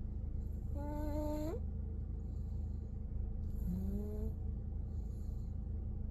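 A sleeping baby snoring: a steady low rumble, with a short rising hum-like squeak on the breath twice, about three seconds apart.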